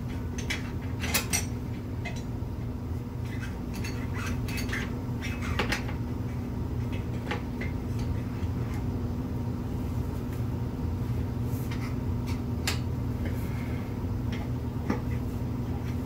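Steel tyre irons clinking and knocking against a spoked dirt bike rim as the tyre bead is levered on, in scattered sharp clicks that are busier in the first half. A steady low hum runs underneath.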